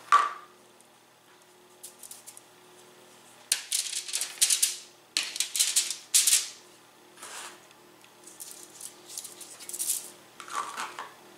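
Salt and pepper being sprinkled onto raw chicken breasts on a foil-lined baking sheet, in several short hissy bursts. About halfway through, the breasts are turned over with tongs to season the other side.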